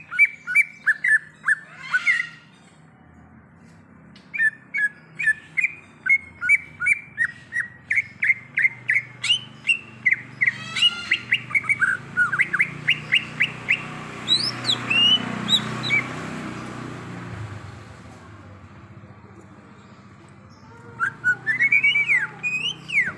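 Cucak ijo (green leafbird) singing in runs of short, sharp whistled chirps, a couple of notes a second. There is a long run in the middle and a quick burst near the end, over a faint low hum.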